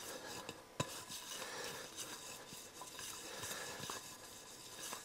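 Fingers rubbing oil around a ceramic plate, a faint soft wiping sound, with one light knock against the plate a little under a second in.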